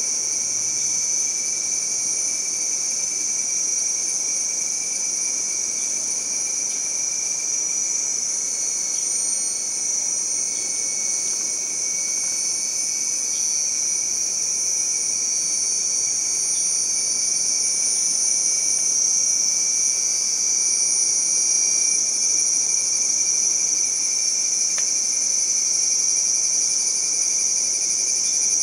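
Rainforest insect chorus: many insects calling at once in a steady, high-pitched shrill drone with several pitches layered together, growing slightly louder in the second half.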